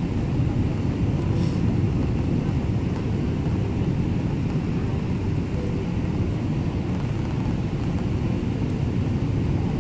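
Steady low roar of engine and airflow noise inside the cabin of a Boeing 777-300ER with GE90-115B engines, heard from a window seat over the wing on approach.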